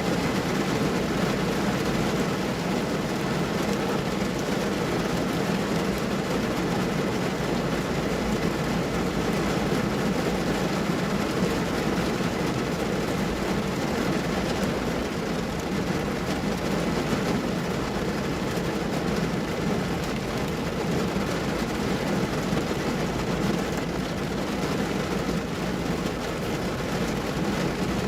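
Heavy downpour drumming steadily on a car's roof and glass, heard from inside the cabin as a dense, even hiss with a low drumming rumble.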